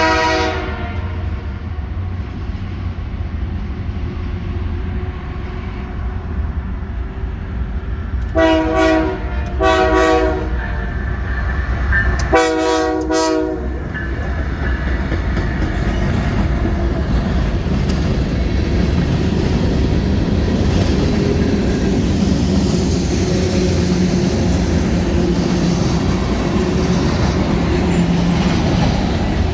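Canadian Pacific freight locomotive's multi-note air horn over the train's low rumble. A blast dies away about a second in, then come two short blasts and a slightly longer one. After that the manifest's cars roll past, the rumble growing louder, with wheels clacking over the rail joints.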